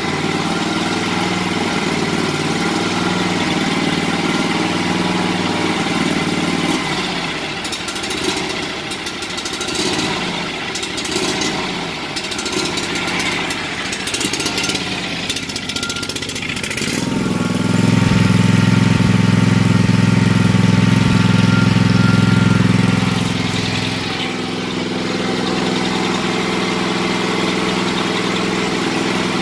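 Kawasaki engine of a Gravely Pro 1336 walk-behind mower running at idle on a newly fitted carburettor. Its note turns uneven for several seconds, then it runs louder for about five seconds before settling back to a steady idle. The air cleaner is off and the carburettor is not yet bolted down, which the owner says gives it an air leak.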